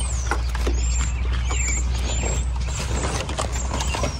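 Worn convertible soft top being handled and rolled back over its folding frame: irregular crinkling, clicks and creaks of the fabric and frame, over a steady rumble of wind on the microphone.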